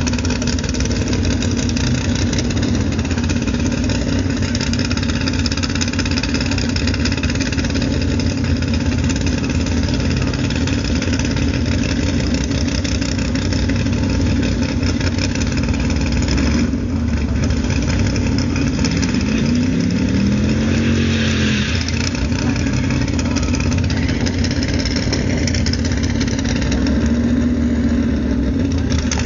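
Drag-racing cars' engines idling loudly and steadily at the start line. About twenty seconds in, one engine revs up and settles back.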